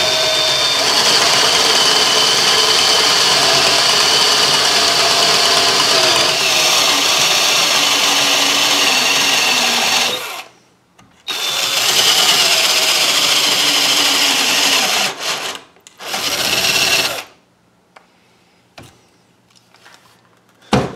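Handheld electric drill boring into a wooden hull, its pitch wavering as it cuts; it runs for about ten seconds, stops briefly, runs again in shorter spells and stops about 17 seconds in. A few faint clicks follow, then a sharp knock near the end.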